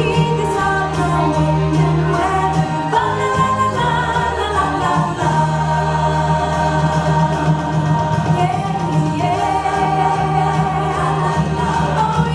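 A song plays: voices sing over a band backing with a steady bass line and a regular percussion beat.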